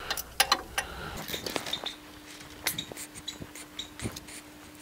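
Hand tools and a loosened bolt clinking against metal: a string of scattered sharp clicks and taps, with a faint steady hum coming in about a second in.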